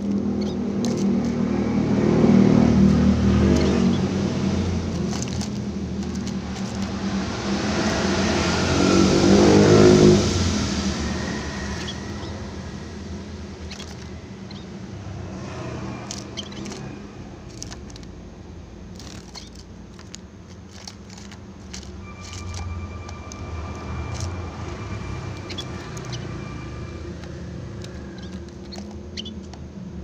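A motor vehicle engine running, swelling louder twice as it passes and then fading to a lower hum. Scattered light clicks run through it, from munias pecking rice against a plastic feeder.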